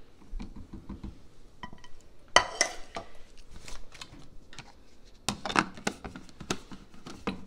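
Knocks and clatter of hard plastic being handled: a personal blender cup is set up and its blade base screwed on. There is one sharp knock about two and a half seconds in, and a cluster of knocks past the middle.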